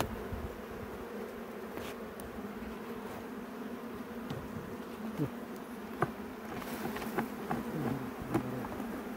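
Honeybees humming steadily over an open hive's frames. In the second half a metal hive tool knocks and scrapes on the wooden frame top bars several times, while single bees fly close past, their buzz dropping in pitch.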